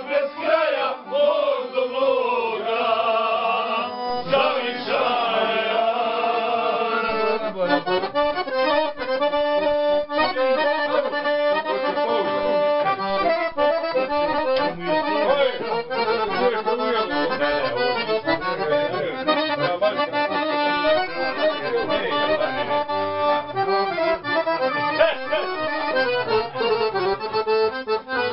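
Piano accordion playing a traditional folk tune. About seven seconds in it moves into a quicker, busier passage of fast, even notes.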